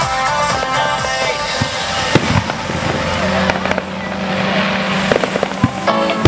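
Aerial firework shells bursting: sharp bangs about two seconds in and several more near the end, with crackle from the bursts, over music.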